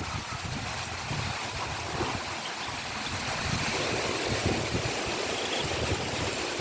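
Heavy rain falling in a steady hiss, with strong gusting wind buffeting the microphone in irregular low rumbles.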